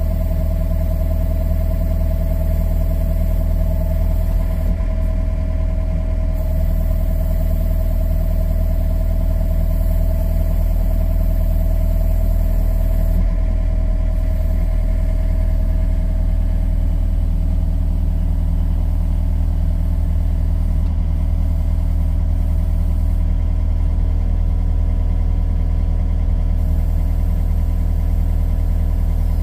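Compact John Deere mini excavator's diesel engine running steadily, heard from inside the operator's cab, with a steady whine over the engine note as the boom is raised.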